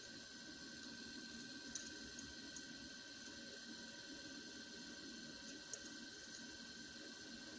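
Quiet room tone with a steady faint high whine, broken by a couple of small sharp clicks, about two seconds and six seconds in, of tweezers and small metal parts being handled while an electric fuel pump is put back together.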